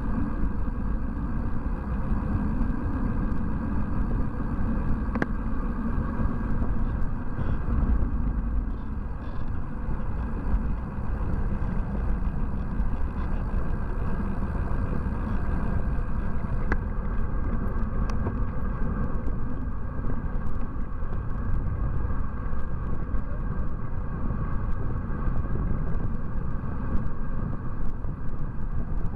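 Wind buffeting a bike-mounted camera's microphone while riding, with steady tyre and road rumble and a couple of sharp clicks.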